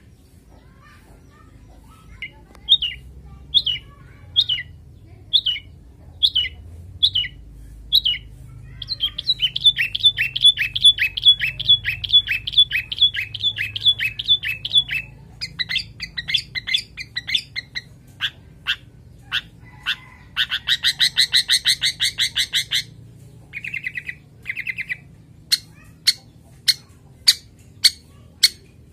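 Male long-tailed shrike (cendet) in breeding condition calling. It starts with short downslurred notes about one a second, then gives a fast run of repeated notes and a dense, harsh rattling chatter, and ends with sharp clicking notes about two a second.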